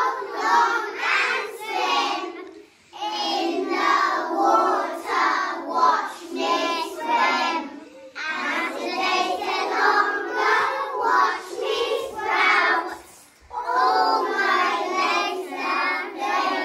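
A class of young children singing together in unison, in phrases of about five seconds broken by short pauses for breath.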